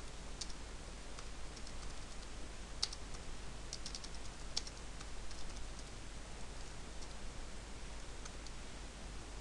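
Keystrokes on a computer keyboard: scattered light clicks, in short runs and single taps, most of them in the first half, over a faint steady hiss.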